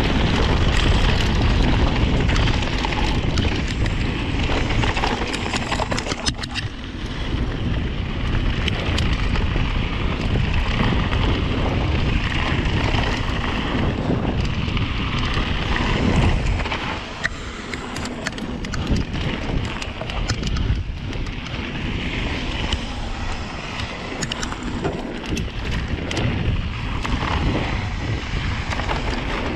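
Wind rushing over an action camera's microphone, mixed with tyre noise and frequent sharp rattles and knocks from a Rocky Mountain Slayer mountain bike riding fast downhill over a rough dirt trail.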